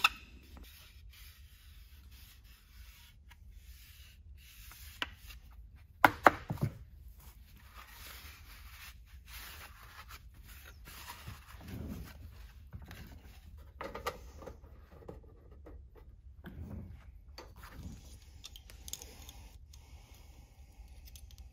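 Quiet workbench handling of aluminum rudder parts and a plastic tip fairing: a few sharp clacks about six seconds in, then scattered soft rubbing and scraping as the plastic piece is handled and fitted against the aluminum skin.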